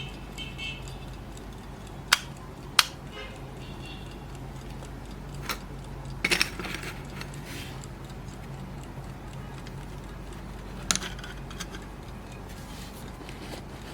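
Romanian-made Golden Time mechanical alarm clock ticking faintly. A few sharp metallic clicks and knocks cut in as it is handled: two about two and three seconds in, a short cluster around the middle and one more near the end.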